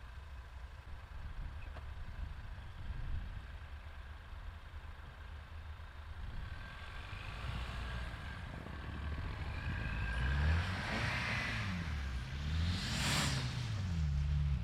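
Ford Bronco Sport's 2.0-litre EcoBoost engine running low at first, then revving up and down repeatedly over the last few seconds as the SUV spins donuts in snow, with a loud rush of noise at the peak of the revs.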